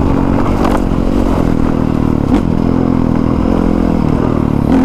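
Honda CRF450R dirt bike's single-cylinder four-stroke engine running at fairly steady revs while being ridden, with a brief pitch change a little over two seconds in. A few short clicks and clatters from the bike going over the ground.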